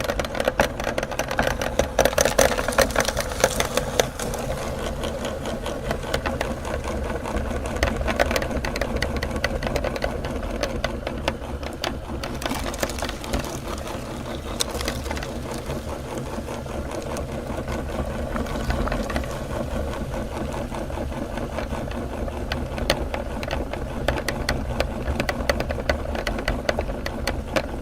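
Electric meat grinder running steadily under load, its motor hum overlaid with rapid crackling and clicking as it grinds chocolate bars; it cuts off abruptly at the end.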